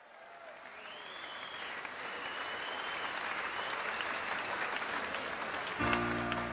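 Crowd applause and cheering fading in from silence, with a few faint whistles, as at the start of a live recording; music begins near the end.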